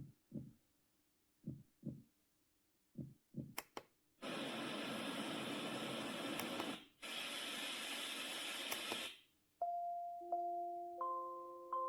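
LIORQUE sunrise alarm clock's built-in sounds being cycled through: about seven soft taps, as its buttons are pressed. Then the speaker plays a steady even hiss, a noise-type sound, for about five seconds with a short break in the middle. A chime melody of ringing tones starts about ten seconds in.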